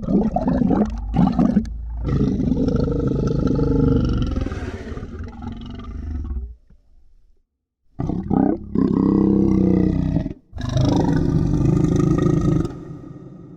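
Monster growl sound effect: two growl sequences, each opening with a few short snarling bursts and then one long growl of several seconds, with a gap of about a second and a half between them. The second growl fades away near the end.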